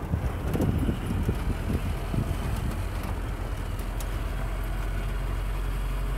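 WWII-style military jeep engine running with a steady low hum, with a few low jolts in the first couple of seconds, and wind noise on the microphone.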